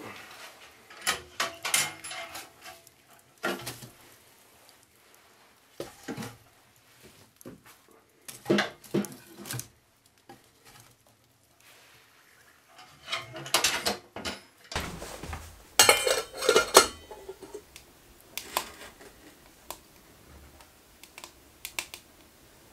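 Metal clinking and clanking of a wood stove and a lidded cooking pot being handled, in scattered sharp knocks with a thicker run of clatter a little past halfway.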